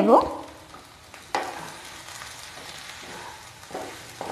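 A wooden spatula stirs fried baby potatoes and ground spices in a hot karai, over a steady sizzle of frying. The stirring starts sharply about a second in, with a few more scrapes near the end.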